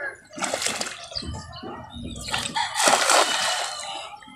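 Cast net thrown into a pond and landing on the water with a splash, loudest about three seconds in, after a shorter burst of noise about half a second in.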